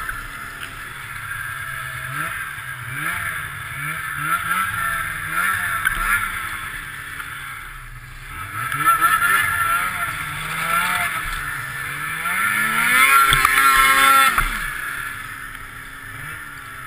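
Ski-Doo snowmobile engine revving up and down again and again as the throttle is worked through deep powder, then climbing to its loudest about three-quarters of the way in before dropping back. Wind rushes over the microphone throughout.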